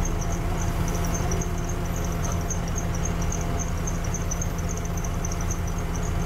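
Double-decker bus's diesel engine idling steadily while the bus waits in traffic, heard from the upper deck. A faint, high chirp repeats about four times a second above the engine.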